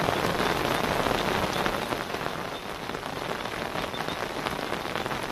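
Heavy rain falling steadily, an even hiss with scattered individual drops ticking close by.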